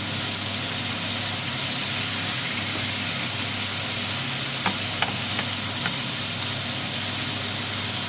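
Cubes of pork frying in hot oil in a nonstick pan: a steady sizzle. A spatula stirs and clicks against the pan a few times a little past halfway. A steady low hum runs underneath.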